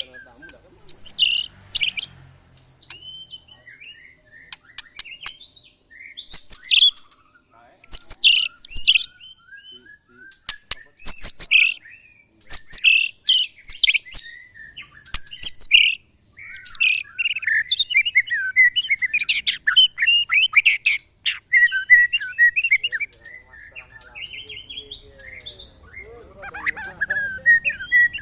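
White-rumped shama song: loud, varied bursts of high whistles and rapid chattering phrases, broken by short pauses.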